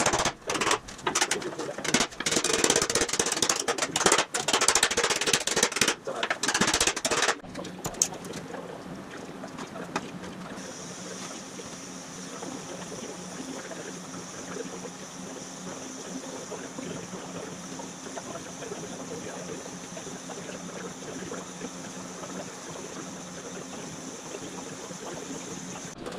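Rapid, irregular hammer blows on a sheet-aluminium panel held over a sandbag on a wooden stump, stopping about seven seconds in. After that, the steady hiss of a gas welding torch flame heating soot-blackened aluminium panels to anneal them.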